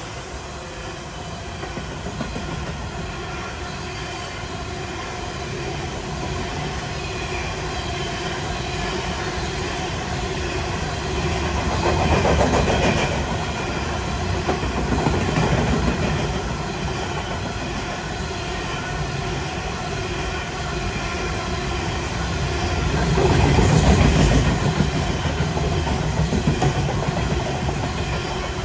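Loaded coal train's hopper wagons rolling past at close range: a steady rumble and rattle of steel wheels on rail, with faint steady whining tones through it. It swells louder twice, about twelve and twenty-four seconds in.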